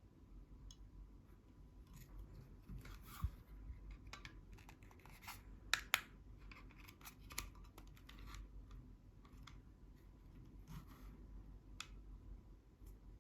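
Failed Seagate hard disk drive clicking and knocking, a run of faint, irregular sharp clicks rather than an even beat: the drive's heads knocking as the drive has broken down.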